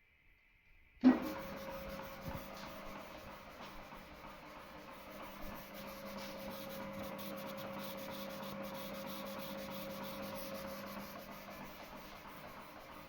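Artur Huster FB3 vintage combination bandsaw and filing machine switched on with a sharp click about a second in, then running steadily with an even motor hum and mechanical rattle.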